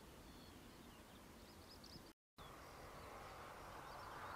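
Faint birds chirping over a quiet outdoor background. The sound cuts out completely for a moment a little over two seconds in, then a faint steady noise slowly grows louder.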